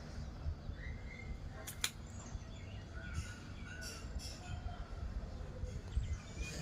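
Outdoor background: a few faint bird chirps over a steady low rumble on the microphone, with one sharp click about two seconds in.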